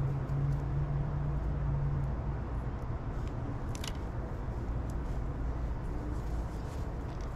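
Steady low mechanical rumble with a hum, like an engine running, loudest in the first two seconds. A few faint ticks come about four seconds in.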